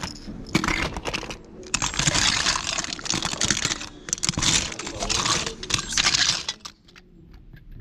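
Hands rummaging through a pile of small plastic action figures and accessories: a dense clatter of hard plastic pieces knocking and sliding against each other, in several spells that die down near the end.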